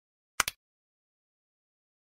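A short, sharp double click, the tap sound effect of a Subscribe button being pressed on a phone screen.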